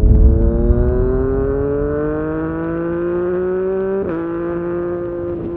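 Engine-like intro sound effect, like a vehicle accelerating: its pitch climbs steadily for about four seconds, dips briefly, then holds steady. It starts loudest and eases off a little.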